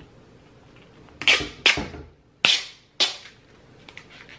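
Thin protective plastic film being peeled off the solar panel of a floating solar fountain pump, in four short, sharp rips.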